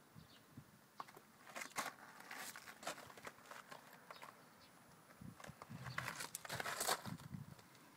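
Irregular rustling and crackling on the microphone in short bursts, loudest about a second and a half in and again near the end; no engine is running.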